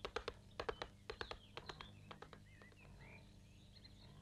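Cartoon sound effect of horse hooves at a gallop: quick groups of sharp clicks that thin out and fade after about two and a half seconds. A few faint bird-like chirps sound in the middle.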